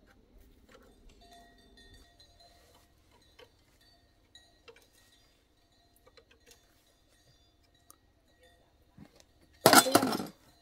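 Faint, scattered light ticks and clinks, then about nine and a half seconds in a brief loud rustling clatter as a cloth and parts are handled in a wire basket.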